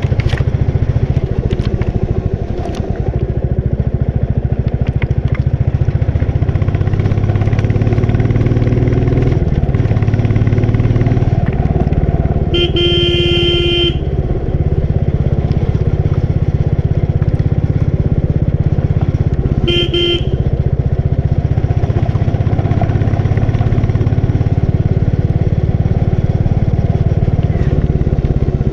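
Royal Enfield Bullet 350's single-cylinder four-stroke engine and exhaust thumping steadily while riding, the note shifting with speed. A horn honks twice, once for over a second about halfway through and once briefly a few seconds later.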